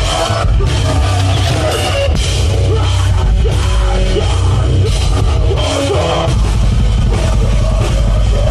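Loud heavy metal music with a drum kit playing steadily throughout.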